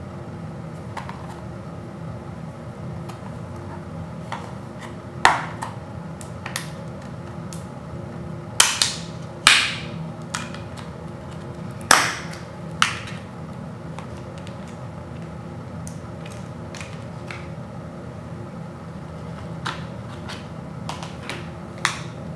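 Blue plastic Blu-ray case being handled and snapped open: a handful of sharp plastic clicks and snaps, loudest through the middle, with smaller taps and clicks before and after. A steady low hum sits under it all.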